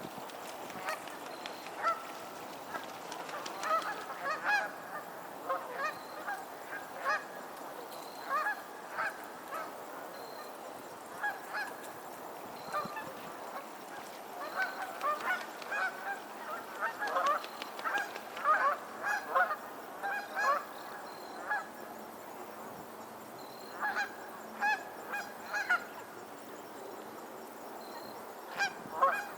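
A flock of geese honking, many short calls overlapping in busy clusters with quieter spells between.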